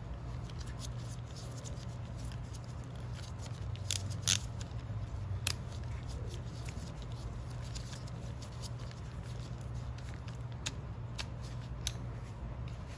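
Hand screwdriver with a bit holder turning a screw into a metal lathe slide, giving faint scattered ticks and a few sharper metal clicks, three close together a few seconds in and two more near the end, over a steady low hum.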